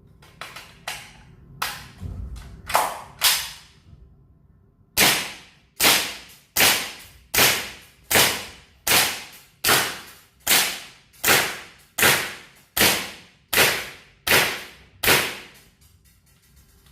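Aimtop SVD Dragunov gas blowback airsoft rifle firing semi-automatic: a few lighter cracks and clicks in the first few seconds, then about fourteen evenly spaced shots, each a sharp crack with the clack of the blowback bolt, roughly one every three-quarters of a second.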